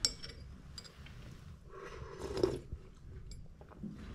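A porcelain coffee cup clinks as it is lifted off its saucer, then a sip of coffee is taken about two seconds in, followed by light handling of the cup and spoon.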